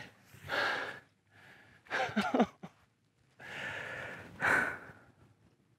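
A man's heavy sighs and exhalations with a short, low falling groan about two seconds in, sounds of dismay after losing a big bass.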